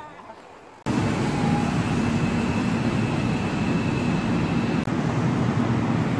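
Subway train noise on the platform: a loud, steady rumble with a thin high whine held above it, cutting in abruptly about a second in after quiet street sound.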